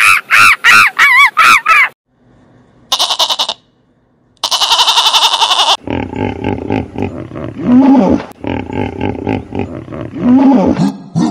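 A monkey's rhythmic pitched calls, about three a second, stop about two seconds in. Two short, harsh, rattling buzzes follow. From about six seconds on, hippopotamuses give deep, rough grunts, with a couple of low rising-and-falling honks.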